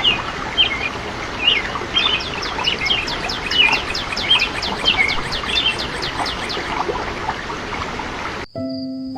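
Several birds chirping and singing over a steady background hiss, one of them repeating a fast run of high downward-sweeping notes. About eight and a half seconds in the ambience cuts off abruptly and music with held notes begins.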